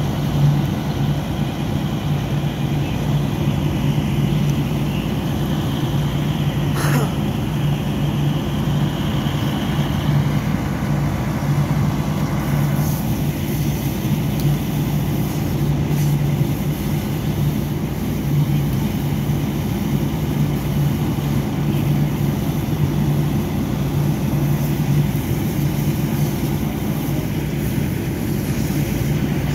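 A vehicle engine running steadily with an even low drone. A brief faint higher tone and one short sharp sound come in about a quarter of the way through.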